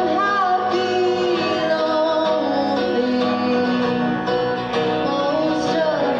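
Outro music: a song with singing over plucked guitar.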